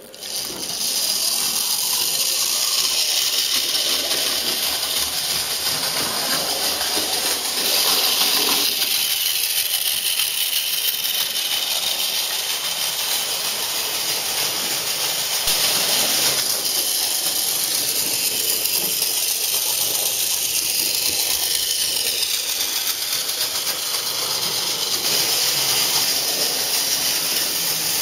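Mainline OO gauge LNER J72 model locomotive and its coaches running round the track: a steady hissing rattle of the small motor and wheels on the rails. It swells a little a few times as the train passes close by.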